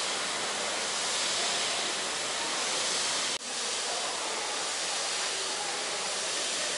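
Steady hiss of rainfall, even and unbroken, with a short dropout about halfway through.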